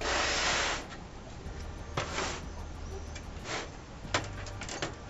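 Computer parts and drives being handled: a scraping, rustling sound lasting under a second, then a few scattered clicks and knocks.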